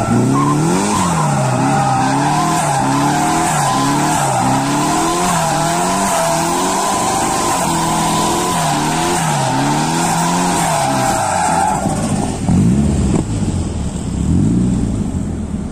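BMW E30 with a swapped Nissan SR20DET turbocharged four-cylinder doing donuts: the engine revs up and down about once a second over a continuous tire squeal. The squeal stops about twelve seconds in, and the engine drops to lower revs with a few throttle blips.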